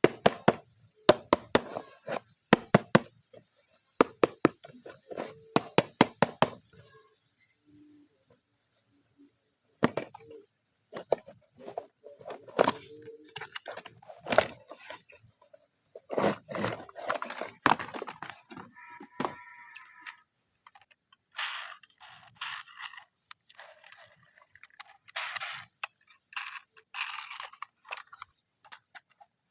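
Plastic toys and their packaging being handled: a quick run of sharp clicks and clacks, then scattered knocks, and near the end a stretch of crinkly plastic rustling.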